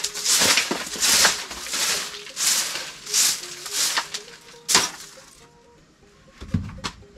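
Short hand-held grass broom sweeping a dusty earth floor in quick scratchy strokes, stopping after about five seconds, followed by a soft knock near the end.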